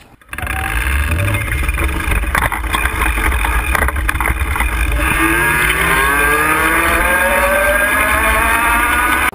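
Rear hub motor of an electric bike whining, its pitch rising steadily through the second half as the bike speeds up. Under it runs a loud steady low rumble, with rattling and clicks in the first half.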